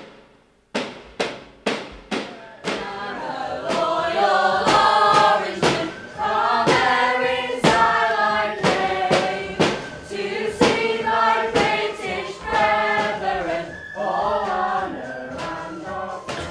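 A group of young voices singing and chanting together over a steady marching beat of loud strikes, a mock Orange Walk parade. The strikes come quickly at first, then about once a second under the singing, and a tin whistle holds a high note near the end.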